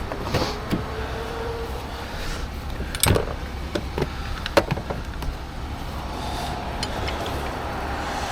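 Jack tools being stowed in the truck's tool compartment, giving a few sharp metallic knocks and clanks, the loudest about three seconds in, over the steady low rumble of a running vehicle.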